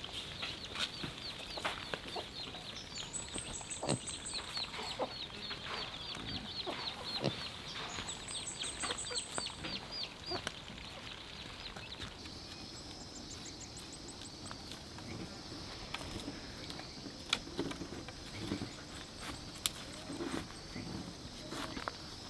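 Chicks peeping in a rapid run of short, high, falling chirps for about the first ten seconds. From about halfway a steady high insect drone takes over, with a few scattered knocks.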